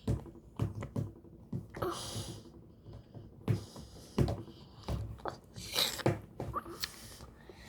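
Irregular clicks and knocks of small hard objects being handled, about ten of them spread out unevenly, with a few short rustling noises.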